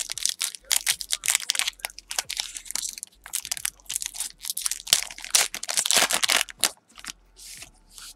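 Foil wrapper of a Panini Prestige basketball card pack being torn open and crinkled by hand: a run of irregular crackling rustles that thins out near the end.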